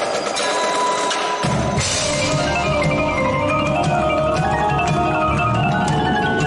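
Indoor percussion ensemble playing: marimbas and other mallet keyboards run through many quick notes over drums. A deep low bass layer comes in about a second and a half in.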